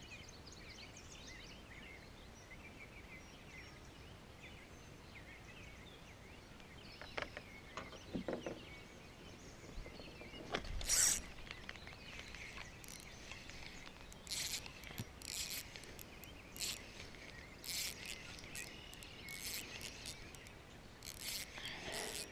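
Quiet outdoor pond ambience with faint bird chirps, then a single knock about eleven seconds in and a run of short, irregular scratchy bursts through the second half as the rod and reel are handled.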